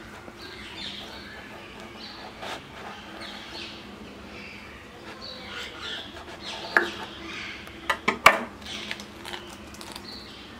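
Kitchen knife cutting through a fried gram-flour-batter-coated pav on a wooden chopping board, with a few sharp clicks of the blade on the board a little after the middle. Birds chirp in the background throughout.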